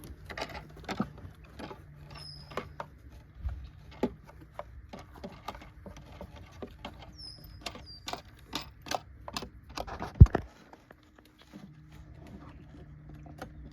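Irregular clicks, taps and light rattles of aluminum martin-house parts and fittings being handled, with one sharp knock about ten seconds in.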